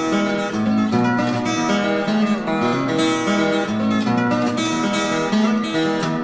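Acoustic guitar instrumental music.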